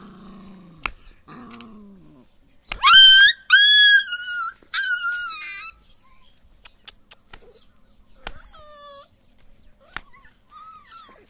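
Puppies play-fighting: low growls in the first couple of seconds, then three loud, high-pitched whining yelps in quick succession about three seconds in, and two fainter whines near the end.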